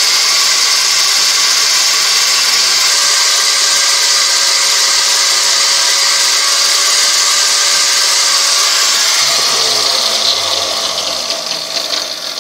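Angle grinder with a well-worn polishing disc running steadily while a steel knife blade, ground from an old file, is held against the disc to polish its bevel. About nine seconds in the grinder is switched off and winds down, its pitch falling away.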